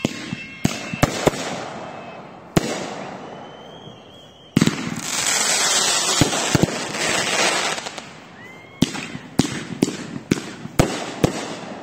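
Fireworks going off at close range: a few sharp bangs, then a loud hiss lasting about three seconds, then a quick string of cracks.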